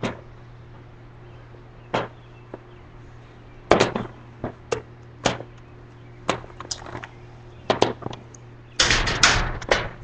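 A dozen or so sharp knocks and clacks at irregular intervals over a low steady hum, then a loud rough rushing noise lasting about a second near the end.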